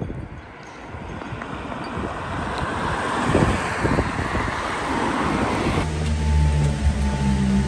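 Road traffic: cars passing on a wet road, with tyre hiss swelling and fading and some wind on the microphone. About six seconds in it cuts abruptly to background music.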